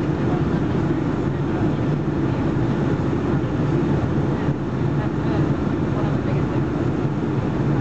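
Steady cabin noise of a Boeing 757-200 airliner descending on approach with its flaps extended, heard from inside the cabin: a constant low hum from the engines under the rush of airflow past the fuselage.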